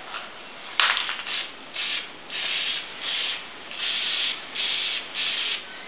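Aerosol spray-paint can hissing in about eight short bursts as green paint is sprayed onto a PVC lamp, the first starting with a sharp click of the nozzle.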